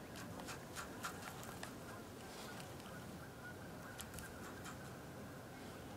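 Quiet outdoor background with faint, irregular small clicks and ticks scattered through it.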